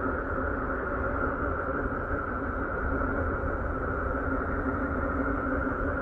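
Uranus's radio emissions turned into sound: a steady, hissing drone with a strong whistling band in the middle range and a low rumble beneath.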